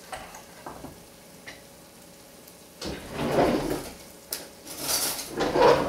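Kitchen handling noise: a ceramic plate being slid and shifted on a plastic cutting board, two scraping stretches about three and five seconds in, with a sharp knock between them.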